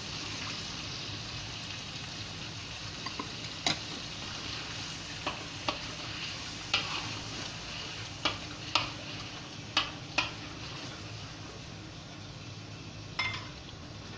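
Chilli paste and sauces frying in a hot wok with a steady sizzle, while a spatula stirs them, scraping and knocking against the wok's metal every second or so from about four seconds in.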